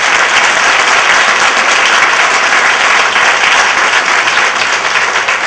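Audience applauding steadily, many hands clapping at the close of a speech.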